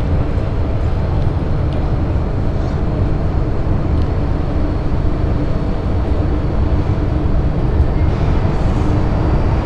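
MTR M-train electric multiple unit heard from on board as it pulls out of an underground station: a steady rumble of wheels on rail with a low motor hum.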